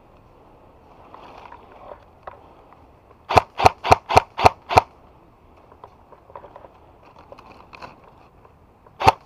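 Airsoft gun firing: six quick sharp shots at about three a second, a few seconds in, then one more shot near the end.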